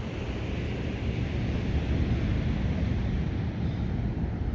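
Wind buffeting the microphone over the steady wash of ocean surf, swelling a little about a second in.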